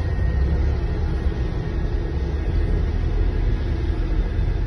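Steady low rumble of a moving car's engine and tyres, heard from inside its cabin.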